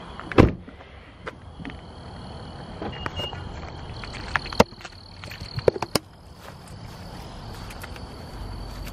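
Crickets chirping steadily over footsteps, with a single loud thump about half a second in and a cluster of sharp clicks around the middle.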